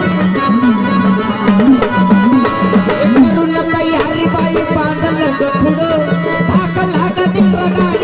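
Marathi gondhal folk music, an instrumental passage: a held low drone note under hand-drum playing whose deep strokes slide up and down in pitch.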